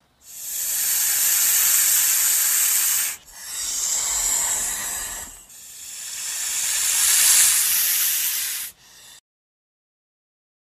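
Snake hissing: three long hisses of two to three seconds each, the third swelling louder, then a brief faint one before the sound cuts off to silence.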